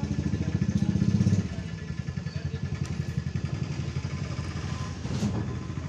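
A small engine idling with a rapid, even low throb, louder for the first second and a half, with a single light knock about five seconds in.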